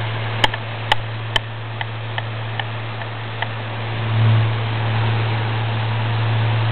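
Electric fan running on high, a steady low hum with rushing air. A series of light clicks, three sharper then several fainter, in the first few seconds, and the hum briefly grows louder about four seconds in.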